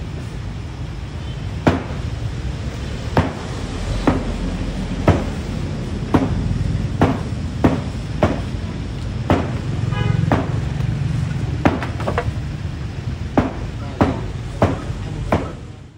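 Sharp knocks repeating about one to two times a second over a steady low rumble, with a short high whine about ten seconds in.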